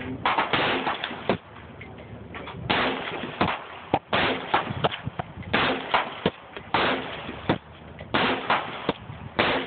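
Repeated gunshots at a shooting range, irregular and overlapping, some in quick pairs, a dozen or more in all, each with a short echo.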